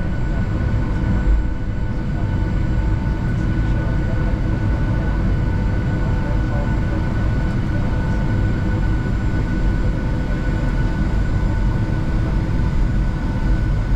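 Boeing 757 cabin noise while taxiing: a steady low rumble from the jet engines at idle, with several constant high tones running through it.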